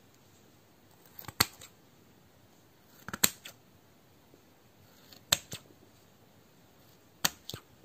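Metal scissors snipping into a mound of slime: four crisp snips about two seconds apart, each with a few smaller clicks around it.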